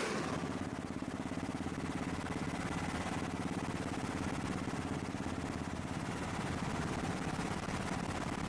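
Aircraft engine running steadily: a low droning hum with fast, even pulsing.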